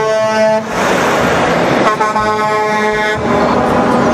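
Air horn of a Mack semi-truck sounding twice: one blast ends about half a second in, and a second blast of about a second starts about two seconds in. Between and after the blasts there is a steady rush of truck and road noise.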